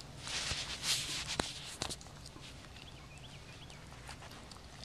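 Wire-haired dachshund chewing and crunching dry dirt: a gritty crackling with a few sharp clicks in the first two seconds, then softer, scattered ticks.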